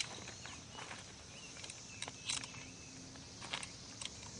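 Quiet outdoor ambience: a faint, steady, high insect buzz, crickets or cicadas, with a few soft clicks and rustles.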